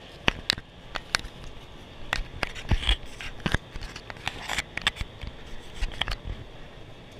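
Irregular sharp clicks and scrapes, the loudest sounds here, over the steady muffled roar of an indoor skydiving wind tunnel heard through the flight chamber's glass wall.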